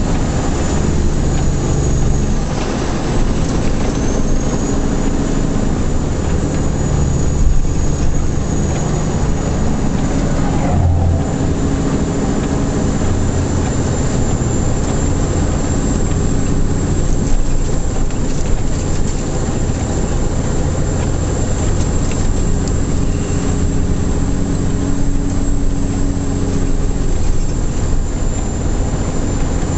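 A truck's diesel engine running under load, heard from inside the cab, its pitch stepping up and down a few times, over a steady haze of tyre noise on a wet road and a thin high whine.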